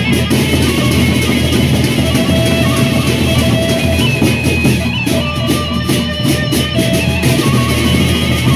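Sasak gendang beleq gamelan playing: large double-headed drums beaten in a steady pattern over a low gong drone, with frequent cymbal crashes and a bamboo suling flute holding long melody notes that step up and down.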